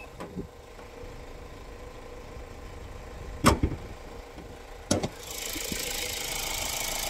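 Two sharp knocks about a second and a half apart over a steady low rumble, followed by a steady hiss that builds from about two-thirds of the way through.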